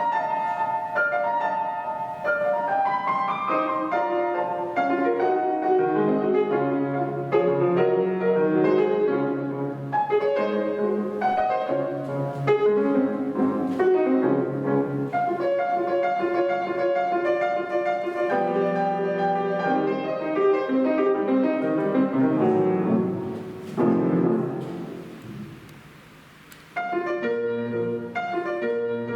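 Solo piano playing classical music, with fast runs of notes. Near the end a held chord dies away for a couple of seconds, then the playing starts again.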